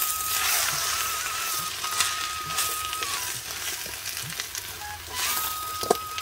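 Mashed breadfruit and onion stuffing sizzling in a hot steel pan, with a steel spoon clinking and scraping against the pan as it is stirred near the end. A thin steady high tone runs underneath.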